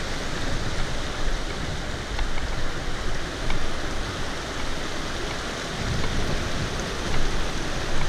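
Fast-flowing mountain stream rushing over rocks and through small rapids, a steady full hiss of water.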